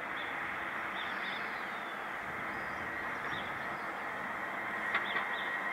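Steady railway trackside background noise with a few faint bird chirps. About five seconds in there is a sharp click, and then a steady high-pitched whine begins.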